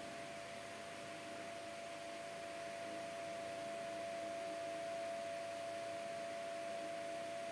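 A steady high-pitched electrical whine, one unchanging tone over a faint hiss, with no voice.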